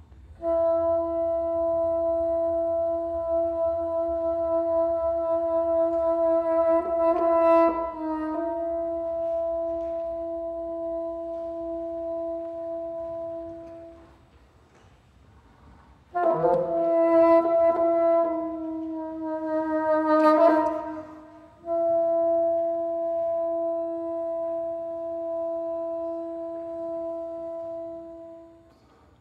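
Solo bassoon playing slow, long-held notes in a contemporary piece. Each note is held for several seconds and fades out; after a pause about halfway through, a phrase with pitch bends and slides leads into another long held note.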